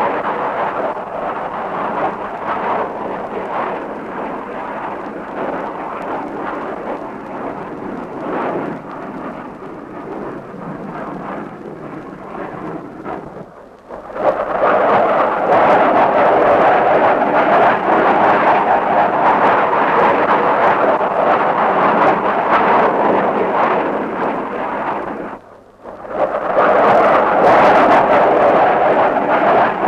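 Continuous rumbling roar of battle sound effects on an old film soundtrack. It cuts out briefly twice, about halfway through and near the end, and is louder after the first break.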